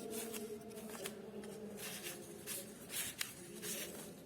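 Short scratchy strokes of handwriting, several in quick succession, with a single sharp click about three seconds in.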